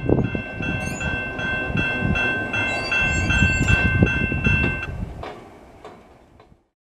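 Railway crossing bell ringing in an even repeating ding, about two strokes a second, over the low rumble of a freight train moving away. The bell stops about five seconds in as the crossing gates rise, and the rumble then fades out.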